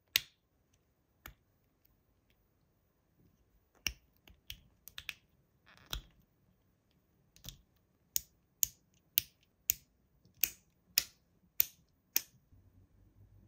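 Sharp clicks and snaps of hard plastic, such as toy packaging or a figure being handled, scattered at first and then a regular run of about two a second near the end.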